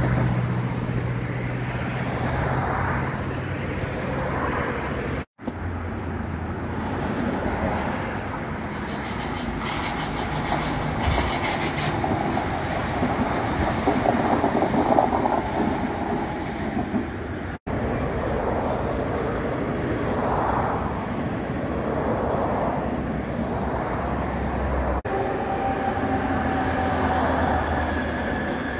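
Electric passenger trains passing slowly on the tracks, rumbling and clattering over the rails, with a steady motor hum at first. The sound cuts abruptly three times between separate passings, the last being an ETR 500 Frecciarossa high-speed train.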